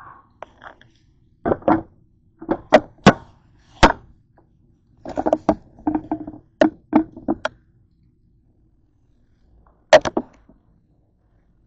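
Metal cookware and utensils clattering: a series of sharp knocks and clanks, some with a brief ring, as a frying pan and a baking tray are handled, then one more clatter near the end.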